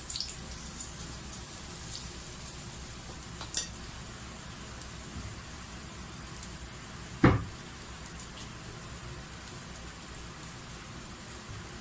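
Chopped garlic sizzling in hot oil in a wok, a steady frying hiss as it begins to sauté. A single sharp knock about seven seconds in.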